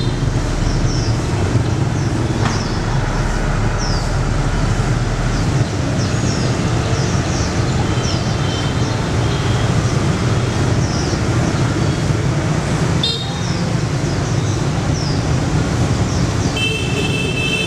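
Dense motorbike traffic on a city street: a steady mix of small engines running and passing by, with a short horn beep about 13 seconds in and a longer horn honk near the end. Short high chirps repeat over it throughout.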